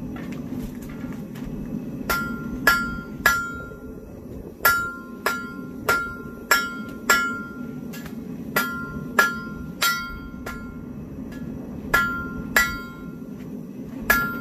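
Hand hammer striking hot steel on a homemade anvil (mild-steel body with a forklift-tine face), each blow ringing out clearly; about fifteen blows in short runs of two to five, about three every two seconds, starting about two seconds in. Under the blows, the steady hum of a propane forge burner.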